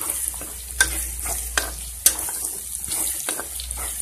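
Sliced onions and ginger-garlic sizzling in hot oil in a kadhai, stirred with a spatula that scrapes and clicks against the pan a few times.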